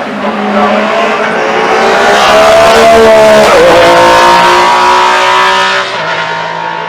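MG Metro 6R4 Group B rally car's V6 engine at full throttle passing close by: the note climbs and grows loud on approach, drops sharply in pitch as the car goes past about three and a half seconds in, then fades after about six seconds as it pulls away.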